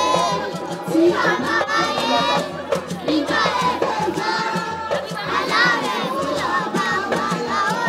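Music: voices singing with wavering, vibrato-laden lines over drums and percussion, with no break.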